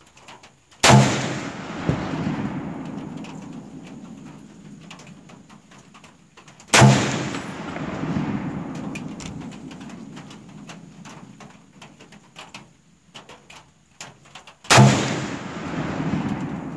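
Three single shots from an M1 Garand rifle, about six and eight seconds apart, each followed by a long echo that dies away over several seconds.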